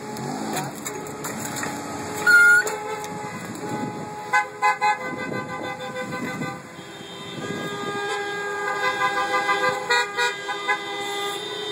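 Car horns honking in a queue of traffic: a loud short toot about two seconds in, a few quick beeps a couple of seconds later, and a longer run of honking in the last few seconds, over the hum of idling cars.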